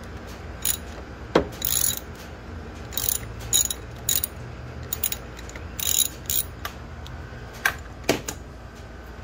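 Socket ratchet clicking in short, uneven bursts as the 10 mm nut on a car battery terminal clamp is turned to disconnect the battery, with a couple of sharper metal knocks.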